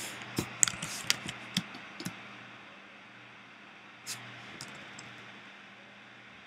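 A quick run of light clicks and taps from computer input at the desk (keys, mouse or drawing pen) during the first two seconds, then two more about four seconds in, over a faint steady hum.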